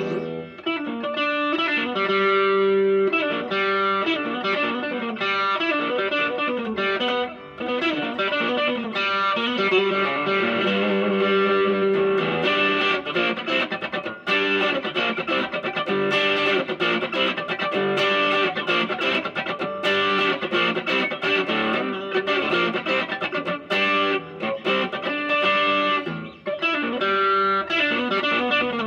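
Electric guitar played through effects, a melodic line of many quick notes, as in a sound check of the guitar's tone.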